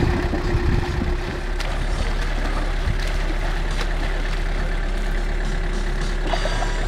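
MK2 Toyota Hilux engine idling steadily, its exhaust piped by hose into the water-filled truck bed so that the exhaust gas bubbles and splashes up through the water.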